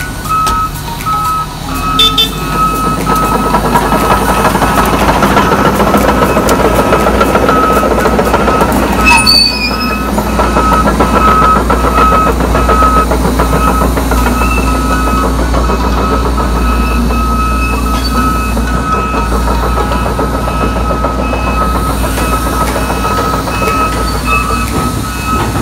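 Volvo crawler excavator's diesel engine running and working, with its travel alarm beeping steadily. There is a sharp squeal or clank about nine seconds in.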